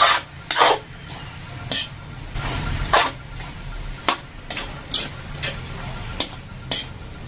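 Metal spoon stirring penne and meat sauce in a wok: irregular scrapes and clinks of metal on the pan, about one every half second to a second, over a faint steady sizzle.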